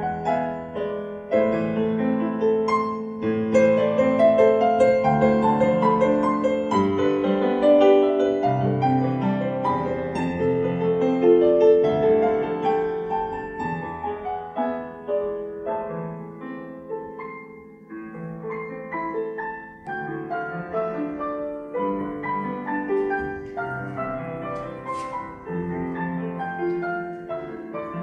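Solo piano played on a Yamaha digital piano: a melody over held chords, fuller for the first half and growing softer after about fifteen seconds.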